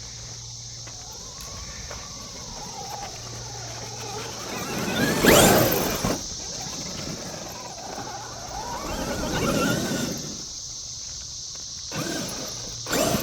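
Whine of an RC monster truck's brushless electric motor, rising and falling in pitch as the truck speeds up and slows, with a loud, sharply rising rev about five seconds in. A steady high insect buzz runs underneath.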